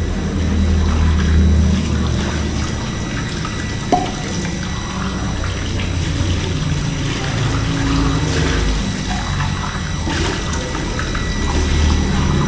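Water running from a kitchen tap into a steel sink as plastic cups are rinsed under it, with one sharp knock about four seconds in, over background music.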